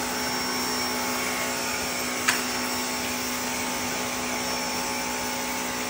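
Electric pressure washer running steadily, its motor humming while the wand sprays water onto a concrete pool floor. One sharp click a little over two seconds in.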